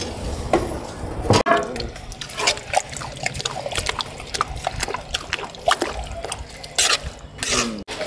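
Thick matar (dried-pea) chaat curry being mixed by hand in a large aluminium pot: wet squelching and sloshing with scattered light clicks.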